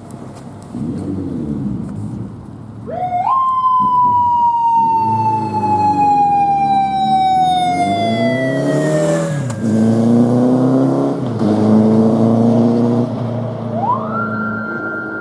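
Japanese police motorcycle's siren wailing: it rises sharply about three seconds in and slowly falls away over several seconds, then rises again near the end and holds. Underneath, the motorcycle's engine revs up and down as it accelerates through the gears.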